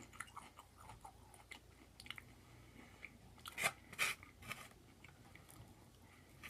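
Close-up chewing and crunching of fried onion rings, a run of small crackles with two louder crunches about three and a half and four seconds in.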